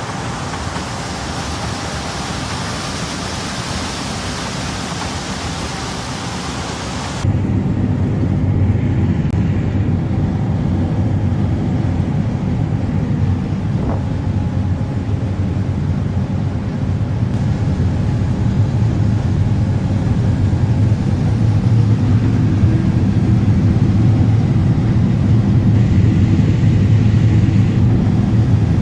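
Steady vehicle running noise: an even hiss for about the first seven seconds, then an abrupt change to a louder, deeper steady engine rumble that swells slightly later on.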